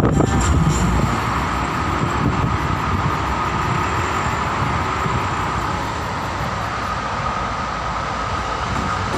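A vehicle running through a tunnel, heard from inside: a steady rumbling running noise with a steady high whine over it.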